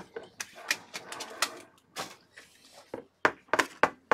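Irregular sharp clicks and taps, with a quick run of four or five louder ones about three seconds in.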